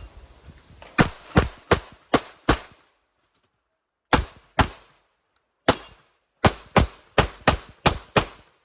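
9 mm Walther Q5 Match SF pistol fired in fast strings during an IPSC stage: five quick shots, a pause, two shots, a pause, then seven more, about two to three shots a second within each string.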